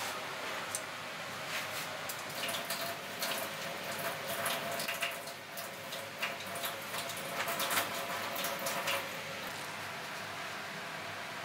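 Kitchen background: a steady rushing noise with irregular light clinks and knocks of utensils, from about a second in until shortly before the end.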